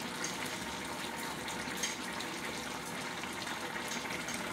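Koorkka (Chinese potato) masala curry boiling hard in a pan: a steady bubbling hiss with a few small pops, the sauce boiling down toward a thick paste.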